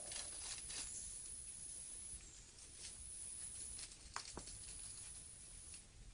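Faint rustling and light crackling of leaves and undergrowth, with two sharp clicks about four seconds in, over a steady hiss.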